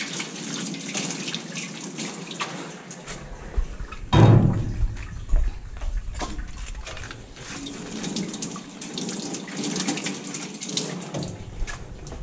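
Faucet water running over stainless steel milking-machine parts in a steel sink, with the clanks and knocks of the metal parts being handled. One louder knock comes about four seconds in.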